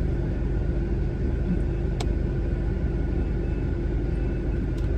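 Steady low rumble of a car's road and engine noise heard from inside the cabin, with a single sharp click about two seconds in.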